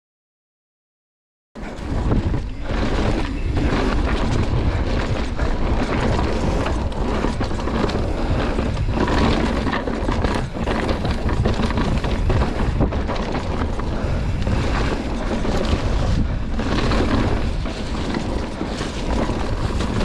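Wind rushing over the camera microphone with rumbling tyre and trail noise as a mountain bike descends a downhill trail at speed. It begins after about a second and a half of dead silence.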